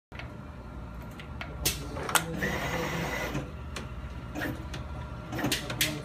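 Automated switch-test fixture with a SMAC actuator pressing the buttons of a car dashboard control panel: sharp clicks about two seconds in and again near the end, and a brief steady high whine in between, over a constant low machine hum.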